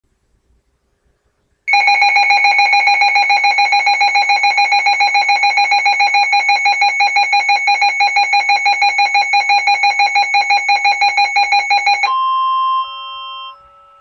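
Weather alert radio sounding its alarm for a severe thunderstorm warning. A loud electronic beep starts about two seconds in and pulses rapidly, about six times a second, for some ten seconds. Then it switches to steady alert tones that step down and fade out near the end.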